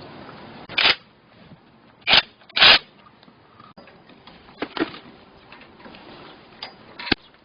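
A few sharp knocks and clatters of metal parts or tools being handled during a repair, the loudest about two and a half seconds in, with smaller ones later.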